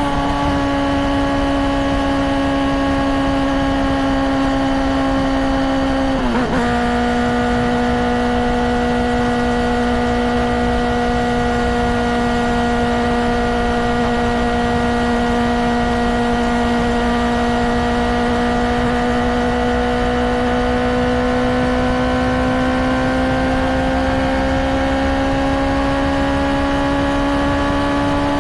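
Honda CBR600RR's inline-four engine running at a steady pitch, with a brief dip about six seconds in and its pitch slowly rising over the last few seconds.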